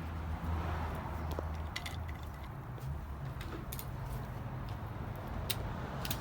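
A few light, sharp metallic clicks from hand tools and BMX bike parts being handled while taking the bike apart, over a low steady hum.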